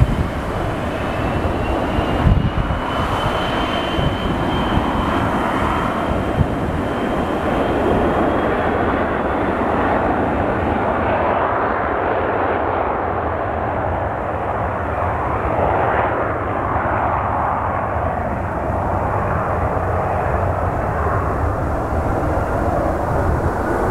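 A McDonnell Douglas MD-80-series airliner's tail-mounted engines running as the jet rolls along the runway. It makes a steady, loud rumble, with a thin high whine over it for about the first ten seconds.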